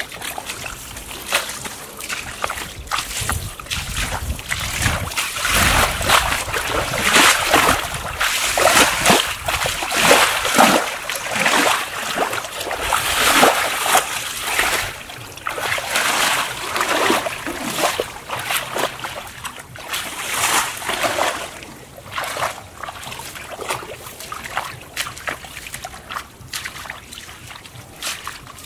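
Bare feet wading through shallow muddy water, each step splashing and sloshing in an irregular run, louder through the middle and softer near the end.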